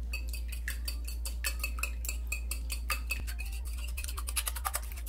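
Wire whisk beating raw eggs in a bowl, its wires clicking against the bowl in a rapid, regular rhythm that quickens near the end.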